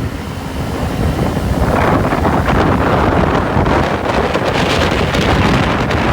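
Heavy wind buffeting the microphone with a loud rushing roar, growing louder about two seconds in.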